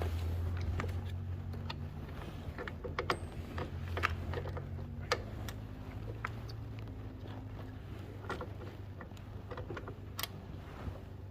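Irregular metallic clicks and taps of hand tools and parts being handled while a motorcycle footpeg is fitted, over a low hum that fades over the first few seconds.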